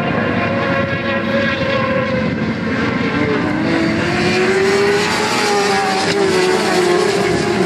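Several superbike racing motorcycle engines running hard together at racing speed, their engine notes overlapping. About two and a half seconds in, one note climbs steadily in pitch as a bike accelerates.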